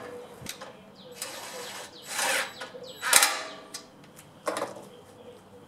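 Recoil starter being fitted back onto a small overhead-valve generator engine and fastened down: several short bursts of mechanical rattling and clicking about a second apart, the loudest about three seconds in.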